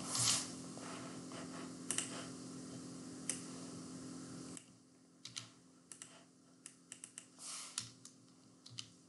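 Faint, scattered computer keyboard keystrokes and clicks, a few at a time. Over the first half they sit on a low steady hum, which cuts off about halfway through, leaving the clicks on their own.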